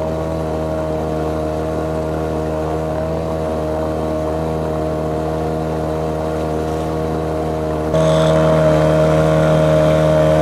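Small, low-powered outboard motor running steadily under way, a constant drone that turns abruptly louder about eight seconds in.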